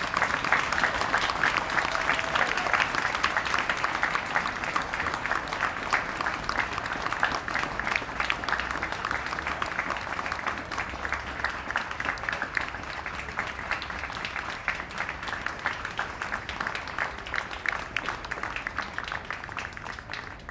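Crowd applauding, a dense patter of many hands clapping, loudest at the start and slowly dying down toward the end.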